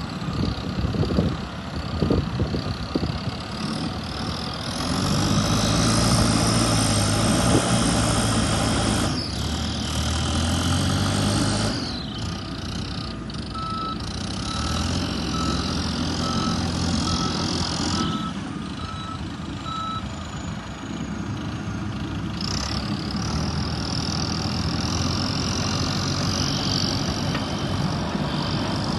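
Heavy construction vehicles running on a building site, their diesel engines rising and falling in load. Midway a reversing alarm beeps about nine times, a little over one beep a second.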